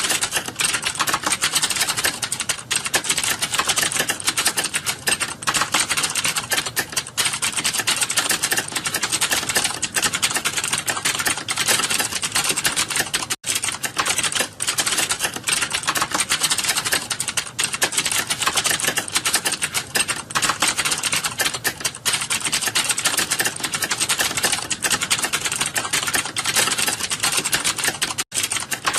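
Fast, continuous typing on a computer keyboard: a dense stream of key clicks, broken only by two very brief pauses, one about halfway through and one near the end.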